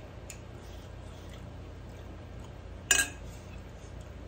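A metal spoon clinks once, sharply, against a ceramic serving dish about three seconds in, with a brief ring; a few faint taps of dishware come before it.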